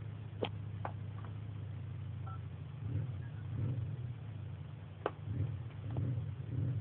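Steady low hum from a VCR and TV playing a tape, broken by a few sharp clicks: two close together about half a second in and another about five seconds in, as the VCR's transport buttons are worked.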